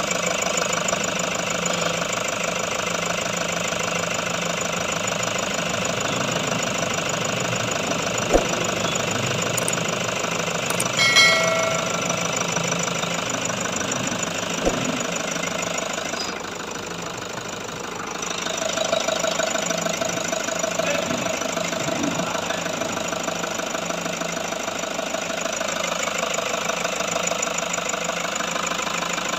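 Toyota Hiace engine idling steadily with the power steering pump running, as the steering is turned from side to side to bleed air from the newly fitted rack while the fluid is still foaming. A sharp metallic clink about eleven seconds in, and a brief dip in level a few seconds later.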